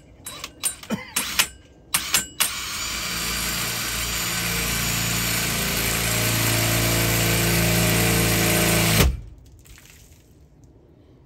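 A cordless drill drives a bi-metal hole saw through sheet-metal roof panel, with a loud steady grinding whine for about six seconds before it stops abruptly. A few sharp clicks come first as the saw is set against the metal.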